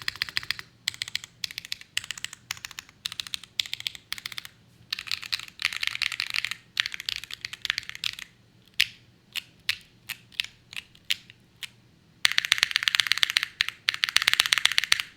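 Typing on a Pluto FRL mechanical keyboard with stock Gateron Blizzard linear switches, an FR4 plate, O-ring mount, no foam and PBT keycaps. Bursts of quick keystrokes give way about nine seconds in to slower single key presses, then a fast, loud flurry of typing over the last three seconds.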